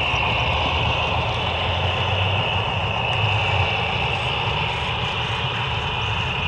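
HO-scale Southern Pacific F-unit model diesel locomotive running along the track: a steady high whine over a low engine drone.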